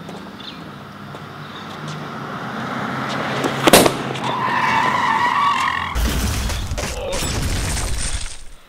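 A car approaches with building engine and road noise, a sharp bang just before halfway, then tyres squeal in a wavering screech. A heavy engine rumble follows and cuts off abruptly near the end.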